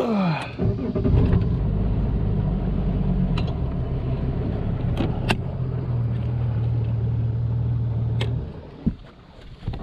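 Bass boat's outboard motor running steadily under way, then throttled back about eight seconds in. A few sharp knocks come through over it.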